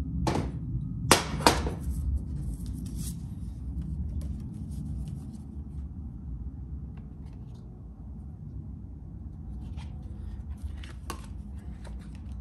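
Handling noises of transmission parts on a steel workbench: the aluminium overdrive piston housing and a thin gasket being picked up, turned and set down. There are a few sharp knocks in the first two seconds and a couple of faint clicks near the end, over a steady low room hum.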